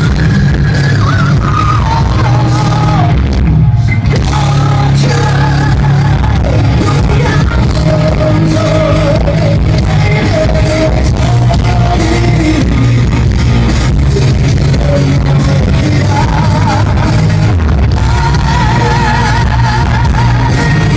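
Music: a song with a sung lead vocal, its held notes wavering with vibrato, over a steady, heavy bass.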